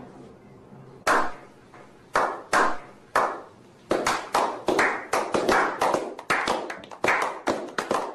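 A slow clap by a small group of men. A few single hand claps come about a second apart, then more hands join and the clapping quickens into steady applause from about halfway through.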